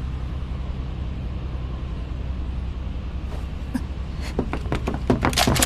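Steady low drone of an airship's engines in the cabin. About three seconds in, a series of sharp clicks and knocks starts and grows denser near the end.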